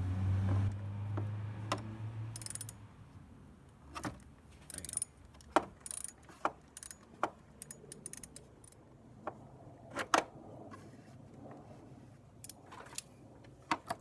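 Ratchet wrench with an 8mm socket clicking in short irregular strokes as it loosens the ground (negative) terminal bolt on a truck battery. A low hum runs for the first couple of seconds.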